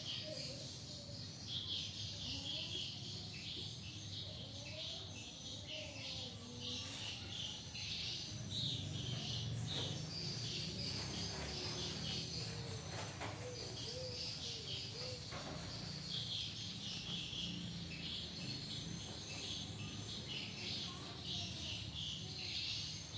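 Small birds chirping continuously in the background over a steady low hum, with a few faint rustles near the middle.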